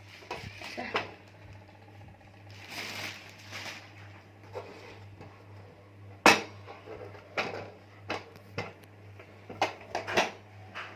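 A glass-top gas stove being handled and turned over: a stretch of rustling, then several sharp knocks, the loudest about six seconds in, over a steady low hum.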